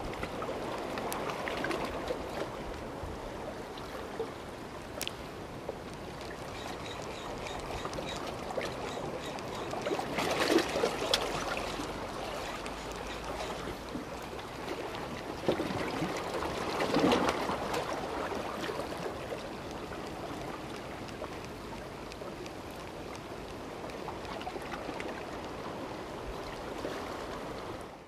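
Sea water lapping and washing against the shore rocks, a steady wash that swells louder twice, about ten and seventeen seconds in.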